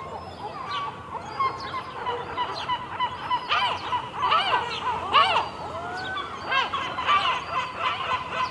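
A flock of gulls calling, many harsh overlapping calls at once, loudest about midway through.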